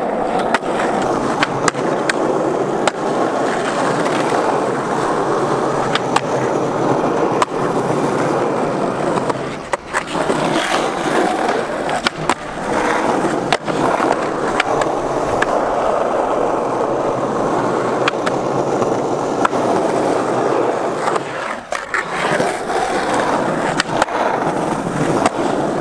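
Skateboard wheels rolling over rough asphalt with a steady rumble, broken by many sharp clacks of tricks: tail pops, the board striking concrete ledges, and landings. The rolling drops away briefly twice, about ten seconds in and again about twenty-two seconds in.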